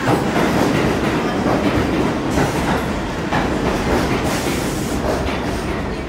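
New York City subway train moving along the platform: a steady loud rumble of steel wheels on the rails, with a clack every second or so as the wheels cross the rail joints.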